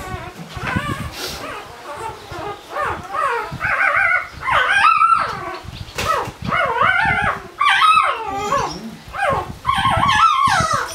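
Four-day-old Barbado da Terceira puppy crying in repeated high, wavering squeals while it is handled for early neurological stimulation, the cries getting louder and more frequent after the first couple of seconds.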